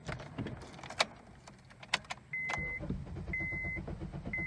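Clicks from the Honda Accord's ignition key being turned, then, from about two seconds in, the car's dashboard warning chime beeping about once a second over a steady low mechanical rumble.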